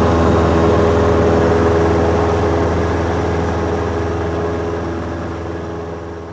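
Cessna 172's piston engine and propeller droning steadily, heard from inside the cabin as the plane climbs out just after takeoff. The sound fades out gradually over the second half.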